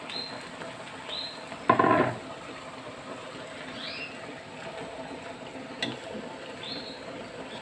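Choy sum stir-frying in a wok: a low sizzle, with one loud scrape of the metal spatula against the wok about two seconds in and a sharp tap near six seconds. Short high chirps recur in the background every second or two.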